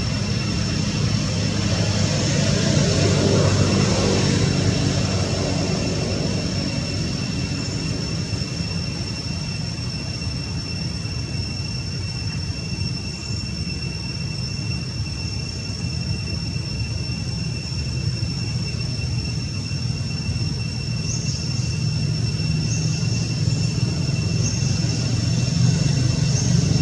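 Low engine rumble, swelling a few seconds in and again near the end, under a steady high-pitched whine; a few faint short chirps come near the end.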